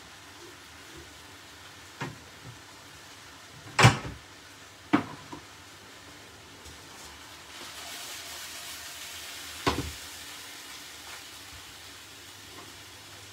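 Braising steaks sizzling in a frying pan, the sizzle growing louder partway through as the steaks are turned over. A few sharp knocks come through, the loudest about four seconds in.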